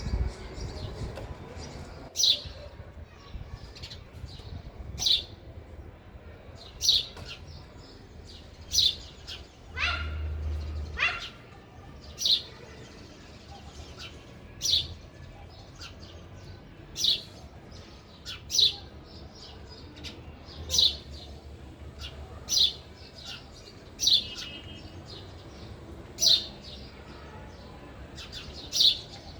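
House sparrow chirping: single short, sharp chirps repeated about every two seconds, with a lower, longer call about ten seconds in.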